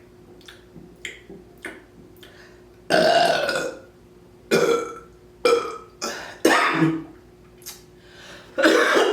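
A woman burping loudly about five times, the first about three seconds in and the rest following every second or so, each burp short and separate. They bring up gas from chugged carbonated drinks.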